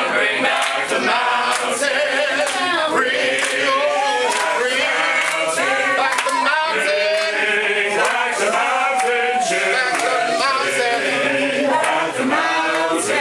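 A choir of men and women singing together.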